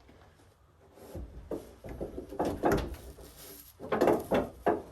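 Heavy cedar slabs knocking and scraping against wood as they are shifted and set onto a stack, a string of irregular wooden thuds and rubs that starts about a second in.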